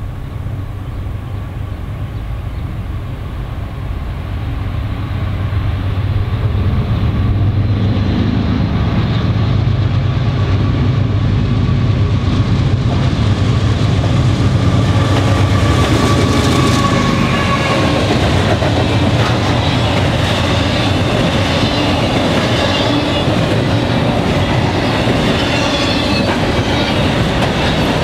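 Norfolk Southern diesel freight locomotives approaching and passing, their low engine drone building over the first several seconds. Then comes the steady rumble and clatter of double-stack intermodal cars' wheels on the rails.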